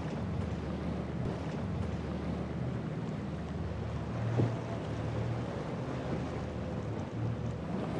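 Several outboard motors on a center-console boat running steadily through choppy water, with water rushing off the hull and wind noise on the microphone. A brief thump comes about four and a half seconds in.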